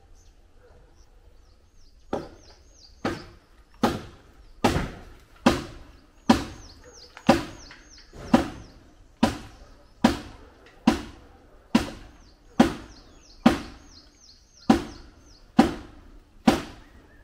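Hammer blows on timber shuttering, knocking the formwork loose from a cast concrete roof slab. The blows start about two seconds in and come evenly, a little under one a second, each a sharp knock with a short ring.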